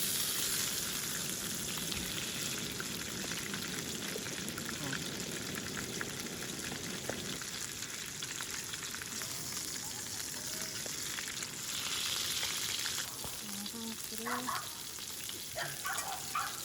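Meat sizzling steadily as it cooks in hot fat, growing a little louder about three-quarters of the way through.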